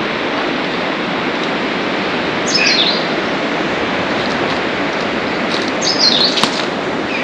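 Steady rush of flowing water, with a bird giving two short bursts of quick chirps that fall in pitch, about two and a half seconds in and again near the end.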